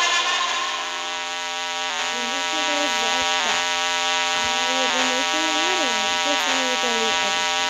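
Looping sound samples from a phone beat-pad app: a steady, layered drone with wavering, sliding tones over it from about two seconds in, offered as a creepy sound.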